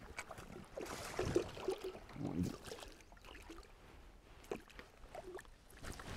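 Water splashing against the side of a boat as a hooked smallmouth bass thrashes at the surface and is grabbed by hand, in irregular splashes that are strongest in the first couple of seconds.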